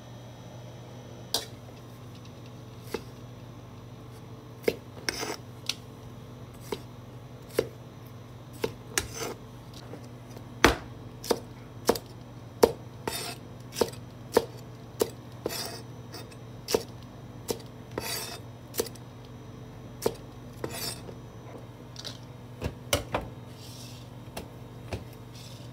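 Kitchen knife chopping green peppers and red paprika into squares on a cutting board: a long run of separate sharp knife strikes, sparse at first and then about one or two a second.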